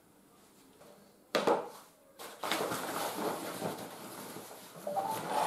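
Metal leg assembly of a folding camping cot being handled: one sharp knock about a second and a half in, then continuous scraping and rustling as the frame and its nylon bed are worked into place, with a brief squeak near the end.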